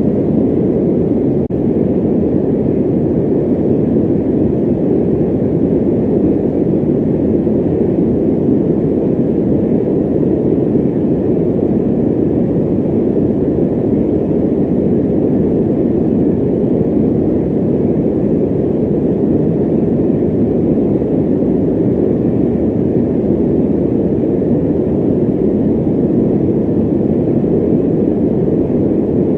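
Electric fan running steadily: an even, low rush of air with little hiss and no change in level.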